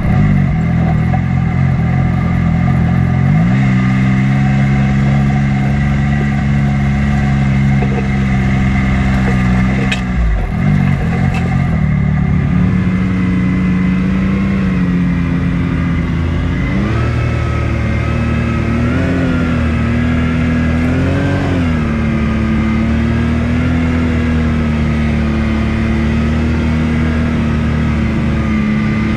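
Off-road vehicle engine running under way on a trail, its pitch rising and falling with the throttle. It steps up about a few seconds in, drops briefly near the middle, then climbs again and wavers up and down.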